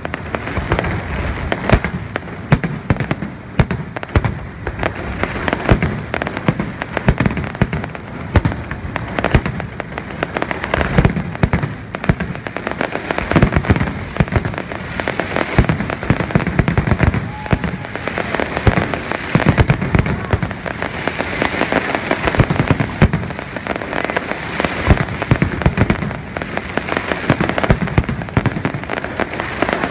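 Aerial fireworks display: shells bursting one after another in a dense, continuous barrage of bangs and crackles.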